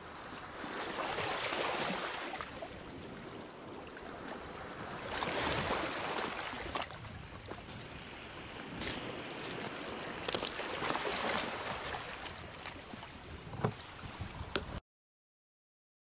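Sea waves breaking on the shore, the rush of surf swelling about every four to five seconds, with scattered small sharp clicks. The sound cuts off abruptly near the end.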